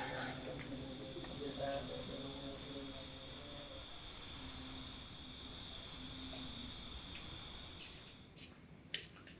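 Crickets chirping: a steady high trill with two runs of quick pulsed chirps, about six a second, in the first half. The chirping cuts off abruptly near the end.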